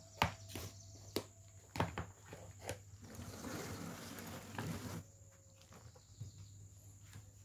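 Knife cutting a tomato held in the hand: about six sharp clicks in the first three seconds, then a softer rustling scrape.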